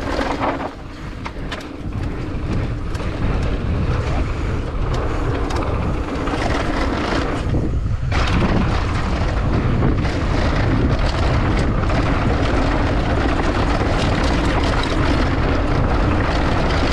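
Wind buffeting the mountain bike's camera microphone at speed, with the knobby tyres rolling on a loose dirt trail and the bike rattling and clattering over bumps on a fast downhill run.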